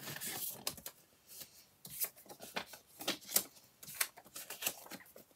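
Polymer banknotes and a plastic zip pouch being handled: scattered soft crinkles and rustles with short pauses between them.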